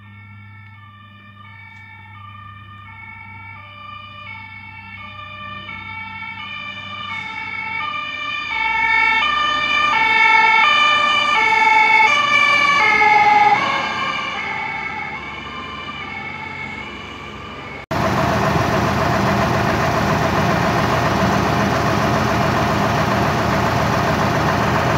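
Two-tone siren of an emergency doctor's car on an emergency run, switching back and forth between two pitches. It grows louder as the car approaches, peaks about halfway through, then drops slightly in pitch and fades as it passes. About three-quarters of the way through it cuts suddenly to a loud, steady rushing noise.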